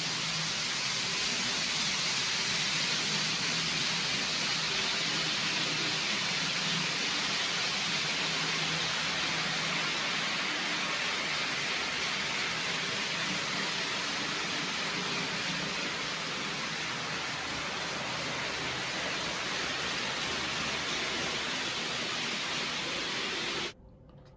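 A steady, even rushing hiss with a faint low hum beneath it, cutting off abruptly near the end.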